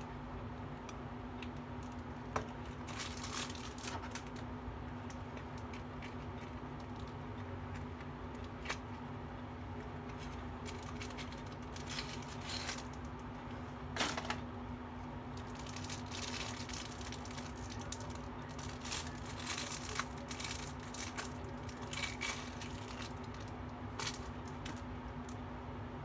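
Clear plastic sleeve of a Rotring Tikky mechanical pencil crinkling in the hands, with scattered small clicks and taps as the pencils are handled, over a steady low hum.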